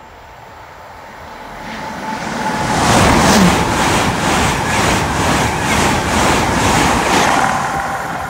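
Hitachi Class 800/3 intercity train passing at speed: a rushing noise builds as it approaches, holds loud for about four seconds with a quick regular beat from its wheels, then fades as it goes away.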